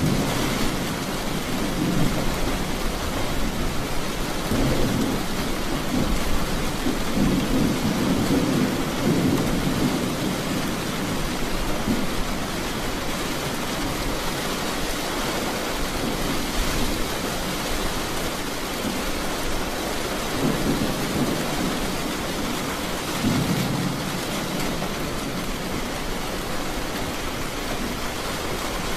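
Steady rain with rolling thunder: low rumbles swell and fade several times, strongest in the first ten seconds and again about two-thirds of the way through.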